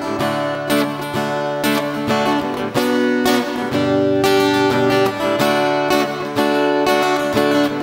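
Acoustic guitar strummed, playing ringing chords in an unhurried rhythm, with a fresh strum every half second to a second.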